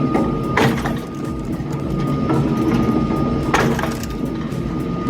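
Hydraulic horizontal log splitter running, with logs cracking apart twice, about three seconds apart, over the machine's steady whine.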